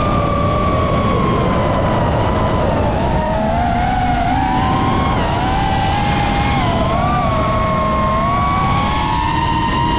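High-pitched whine of a model aircraft's engine, its pitch wavering up and down as the throttle and airspeed change, over a heavy rush of wind noise in flight.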